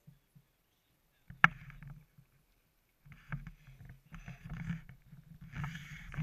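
A single sharp knock about a second and a half in, then irregular splashing and sloshing of water at the landing net alongside the boat from about three seconds on.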